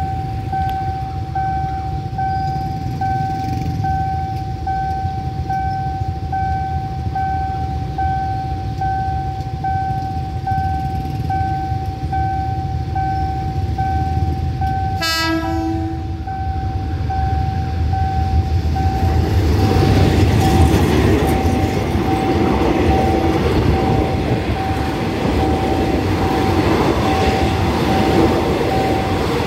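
Level-crossing warning signal beeping in a steady pulse. About halfway through, a diesel locomotive's horn sounds once for about a second. Then the passenger train runs past close by, its rumble and wheel clatter growing louder and carrying on as the carriages go by.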